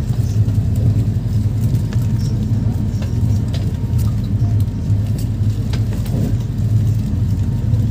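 Steady low rumble of a moving train heard from inside the Shatabdi Express chair car, with faint crinkling of snack packets being handled on the tray.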